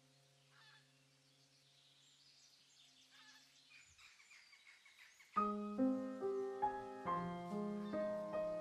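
A low sustained ringing tone dies away under a few faint chirps. About five seconds in, soft background piano music starts, note after note, and becomes the loudest sound.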